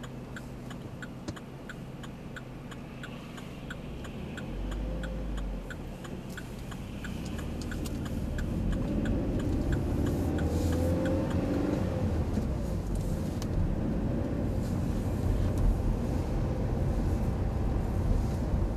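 Car's turn-signal indicator ticking steadily inside the cabin, heard over a low engine hum; the engine and road noise grow louder as the car pulls away and gathers speed, and the ticking stops partway through.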